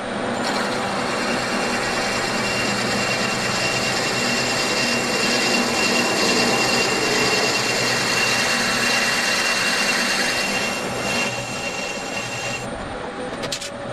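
Bridgeport milling machine spindle running as a twist drill bores a drain cock hole into a steam locomotive cylinder casting: a steady machine sound with a thin whine. It drops away near the end, followed by a few sharp clicks.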